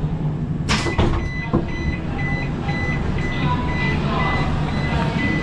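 Electronic warning beeper sounding a short high beep about twice a second, starting just after a sharp knock about a second in, over a steady low rumble.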